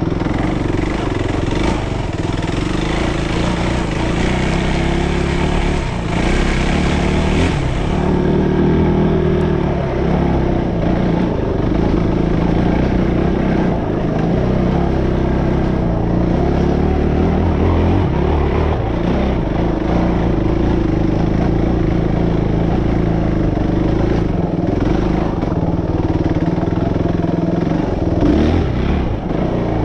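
Suzuki RM-X450Z dirt bike's single-cylinder four-stroke engine running under a rider over rough trail, its note rising and falling with the throttle. A hiss rides on top for the first several seconds.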